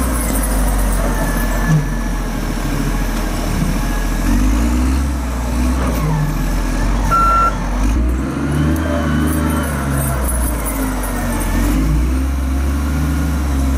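Diesel engine of a Kawasaki 85ZIV wheel loader running under load, its revs rising and falling as it lifts and dumps buckets of snow into a dump truck. A short beep sounds about halfway through.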